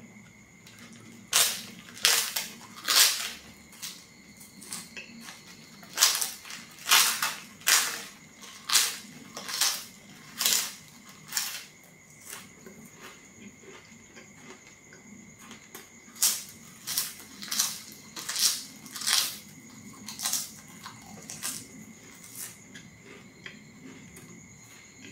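Loud crunching as a person bites and chews thin, crisp flatbread: sharp crackles about a second apart, in one run through the first half and another shorter run a little past the middle, with softer chewing between. A steady high insect trill runs underneath.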